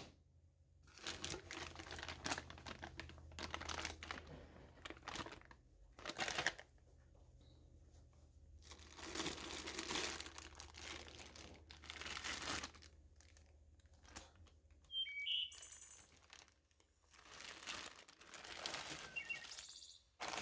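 Plastic zip-top bags crinkling as they are handled and lifted out of a metal box, in several bursts of a second or more with short pauses between them.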